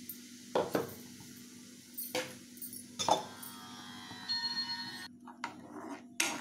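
A spoon stirring and scraping a tomato and cornflour mixture in a non-stick pan, with a few clinks and scrapes of the spoon against the pan about a second apart, over a steady low hum.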